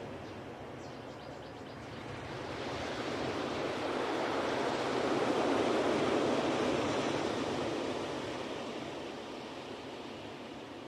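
Ocean surf: one wave surges in over a few seconds, peaks midway, then washes back and fades.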